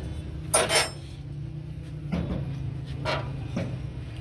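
Metal clanks and knocks as a Massey Ferguson tractor's cast-iron hydraulic lift cover is lowered and seated onto the rear housing: a loud clank just over half a second in, then lighter knocks about two, three and three and a half seconds in, over a steady low hum.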